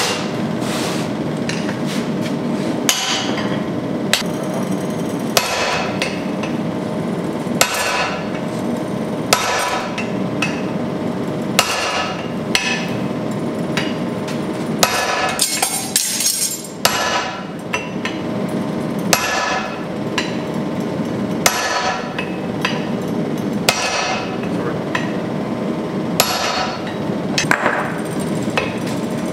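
Sledgehammer blows striking red-hot steel on an anvil as a carving axe head is forged, one heavy ringing blow about every two seconds with a few lighter hammer strikes between. Underneath runs the steady roar of the gas forge.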